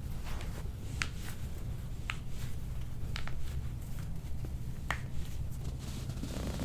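Handling sounds during a hands-on exam on a treatment table: a few isolated sharp clicks about a second apart and soft rustling of skin and clothing, over a low steady room hum.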